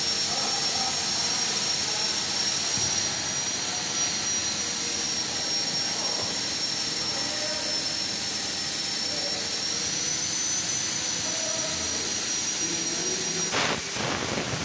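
Fiber laser cutting machine running: a steady whooshing hiss with a thin high whine over it. About thirteen seconds in, a sudden rush of hiss with a few sharp cracks as the Raytools cutting head starts cutting into the steel sheet.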